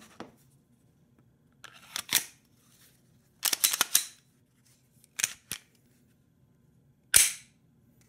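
Glock pistol's slide being fitted back onto the frame and the gun function-tested, the check after installing a new slide lock: a series of short, sharp mechanical clicks and snaps of the slide and trigger. They come in small groups, with a quick cluster about halfway through and the loudest single snap near the end.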